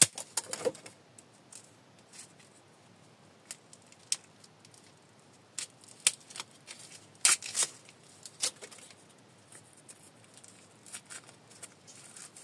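Small handling noises from a meter coil's plastic bobbin being picked apart with a thin screwdriver: scattered clicks and scratches of plastic and metal, with a louder pair of clicks about seven seconds in.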